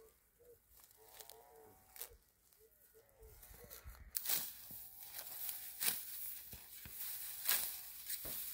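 Dry, ripe wheat stalks crackling and rustling as they are grabbed and cut by hand with a sickle, with sharp snaps of the stalks repeating every second or so. This starts about four seconds in. Before it there are a few short, faint, pitched calls.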